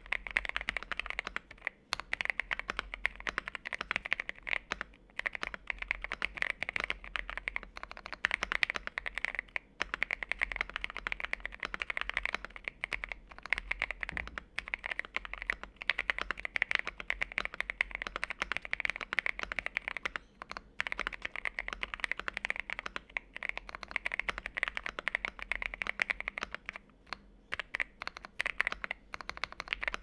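Fast, continuous typing on a mechanical keyboard with Gateron Oil King linear switches, a thocky switch, in a Meletrix Zoom 75 with an aluminium case, polycarbonate plate and gasket mount, fitted with XDA-profile PBT keycaps. The keystrokes come in dense runs with a few brief pauses.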